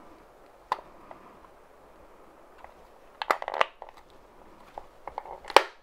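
Plastic case of a Metrokane Rabbit electric wine opener being squeezed together by hand: scattered clicks and creaks, a quick cluster of clicks about three seconds in, and a sharp snap near the end as the snap-fit catches latch.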